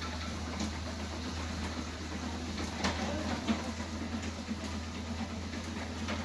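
A steady low mechanical hum with scattered light clicks, two of them a little louder about three seconds in.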